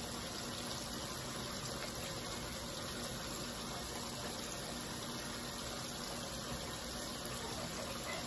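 Steady, even background hiss with a faint low hum, and no distinct knocks or clicks.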